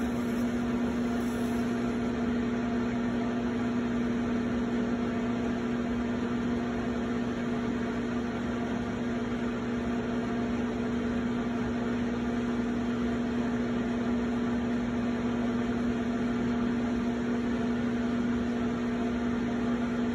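Electric potter's wheel running with a steady, even hum as it spins a porcelain pot being thrown.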